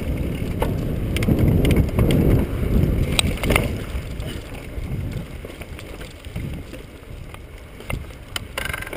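Mountain bike tyres rumbling over a dirt singletrack descent, with wind buffeting the microphone and a few sharp rattles and knocks from the bike over bumps, the strongest about three and a half seconds in. The rumble grows quieter after about four seconds.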